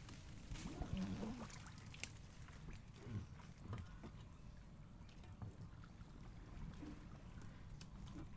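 Small wooden boat on a river being worked by hand: light water splashes and knocks against the hull over a steady low rumble.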